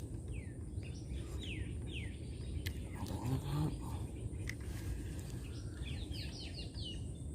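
Birds calling: a few separate falling chirps in the first two seconds, then a quick run of five or six falling notes about six seconds in, over a steady low rumble.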